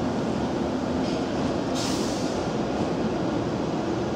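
Steady hum and rumble of trains at a station platform, with a short hiss about two seconds in.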